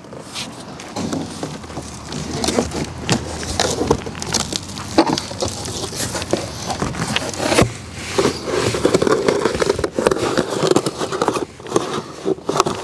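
Cardboard shipping box being handled: the stapled flaps are pulled open and the cardboard packing inside is pushed about, making irregular crackles, clicks and rustles, with a longer scraping stretch in the second half.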